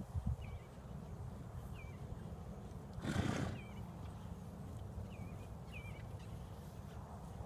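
A weanling colt blows out one short, noisy snort through its nostrils about three seconds in, while faint short high chirps come and go in the background.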